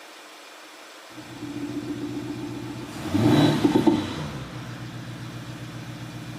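Mercedes CLA C118 with an active sound system fitted: a steady idle note comes in about a second in, a short rev about three seconds in rises and falls back within about a second and a half, then the idle continues.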